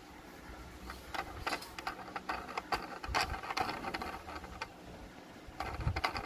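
Handling noise from a diecast toy Hummer H2 being turned over in the hands: irregular small clicks, taps and rubbing, with a couple of soft thumps near the end.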